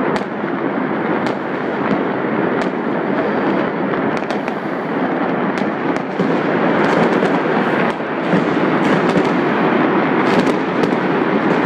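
Many fireworks going off at once across a city: a dense, continuous crackle of bangs, with sharper single cracks standing out every second or so.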